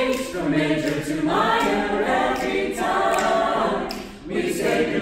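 Mixed-voice a cappella group of men and women singing together in harmony, holding sustained chords, with a brief drop in loudness a little after four seconds.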